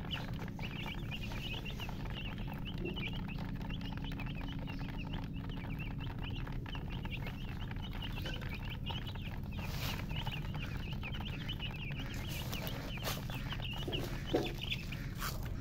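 Baby chicks peeping: many short, high chirps in a rapid, overlapping stream, thinning out in the last few seconds, where a few sharp clicks and one brief lower call come through.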